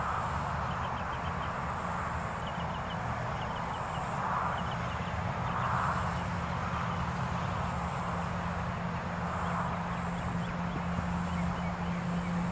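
Steady open-air background noise with repeated short runs of quick bird chirps. A vehicle engine hum builds near the end.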